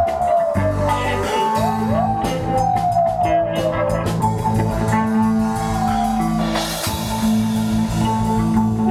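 Live rock band playing an instrumental passage with electric and acoustic guitars, bass and drum kit. A lead line slides up and then sags slowly down, twice, over steady bass notes. A cymbal crash comes about two-thirds of the way through.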